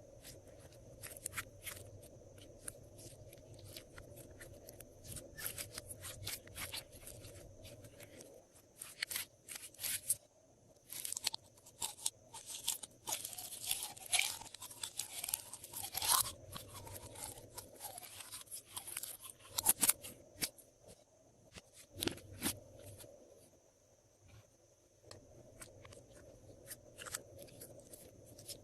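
Glossy slime being squished and mixed by hand, giving irregular sticky crackles and clicks, densest about halfway through.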